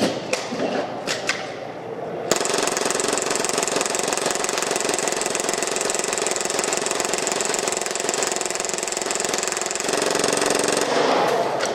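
Action Army AAP-01 airsoft pistol firing one long, continuous full-auto burst that dumps the magazine. The burst starts abruptly about two seconds in and runs steadily for about eight and a half seconds. A few clicks of the magazine being loaded come before it.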